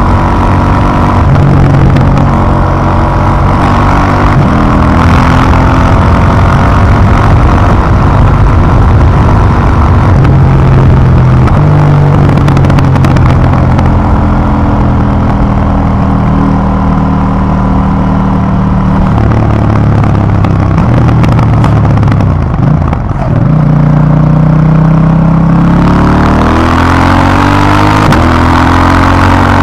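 2018 KTM 790 Duke's 799 cc parallel-twin engine through its stock exhaust, recorded on the moving bike. The engine note holds at one pitch, then steps up or down as the throttle changes. It dips briefly a little past twenty seconds in, then climbs steadily in pitch as the bike accelerates near the end.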